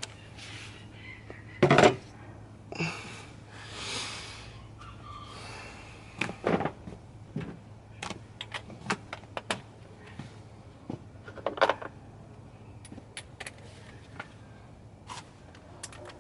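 Hand tools and metal parts being handled during car repair work: a loud knock about two seconds in, a few seconds of scraping, then a run of light clicks and taps and another knock.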